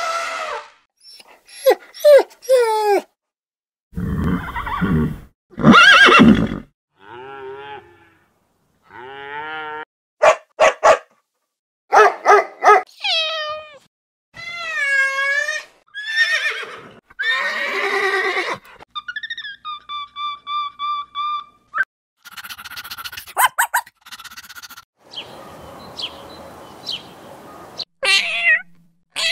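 A string of different animal calls one after another, each a second or two long with short gaps between. An elephant trumpets at the start, a loud deep call comes a few seconds in, a kitten meows about halfway, and a cat meows near the end.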